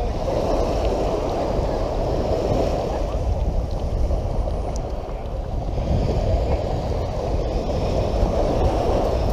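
Shallow seawater washing and sloshing, with wind buffeting the microphone: a low, steady rushing noise.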